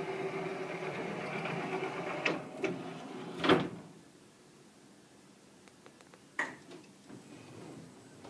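Electric motor of a wheelchair van's power in-floor ramp running with a steady hum as the ramp slides out, with a few clicks and a loud clunk a little past three seconds in, as the ramp extends fully and sets down. The hum then stops, and a single knock follows about two and a half seconds later.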